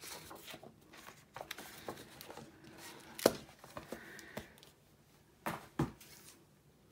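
A large hardcover book being handled: paper rustling, a sharp clap about three seconds in as the book is shut, then two dull knocks as books are moved on the table.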